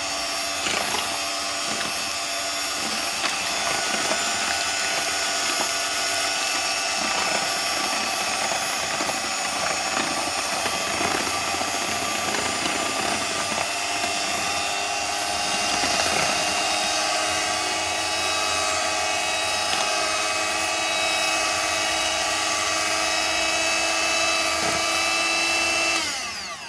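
Electric hand mixer running steadily, its beaters whisking eggs, sugar and cooking oil in a bowl. Near the end the motor winds down as it is switched off.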